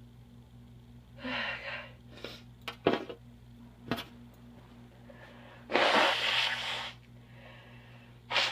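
A person's nose and tissue sounds: a short breathy inhale or sniff, a few crinkly clicks of a tissue being handled, then a loud, forceful nose blow into a tissue lasting about a second.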